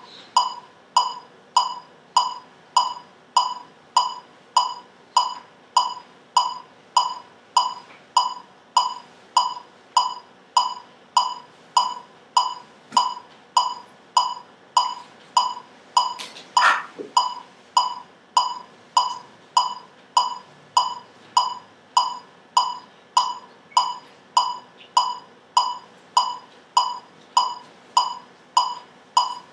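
Electronic metronome beeping steadily at 100 beats per minute, a short high click about every 0.6 seconds. A brief broader noise sounds once about halfway through.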